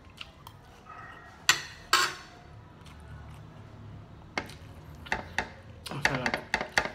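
A metal spoon clinks sharply against a plate twice, half a second apart, about one and a half seconds in. Near the end comes a quick run of close-up clicks and crackles from eating.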